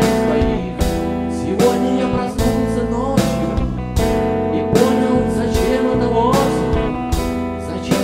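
Song's instrumental passage: guitar and sustained chords over a steady beat, with a hit roughly every 0.8 s.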